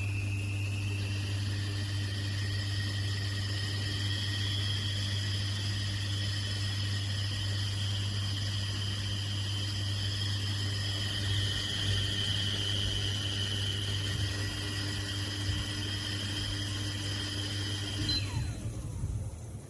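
Ibili Prisma 1.5 L stainless-steel stovetop whistling kettle whistling at the boil: a steady shrill whistle of several tones at once, rising a little at first, that falls in pitch and dies away near the end.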